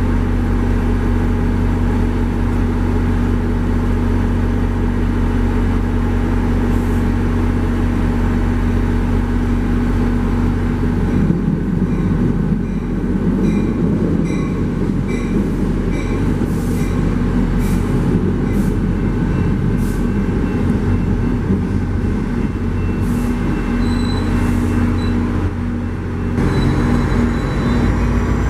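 Steady low diesel rumble of a passenger train. A second NJ Transit passenger train passes close by on the next track, its wheels clicking evenly over rail joints for several seconds. Near the end the sound changes to the running noise of a moving train.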